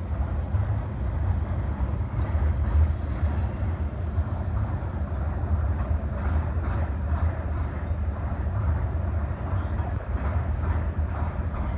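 A long BNSF freight train of empty oil tank cars rolling past with a steady low rumble and faint clicks from the wheels now and then.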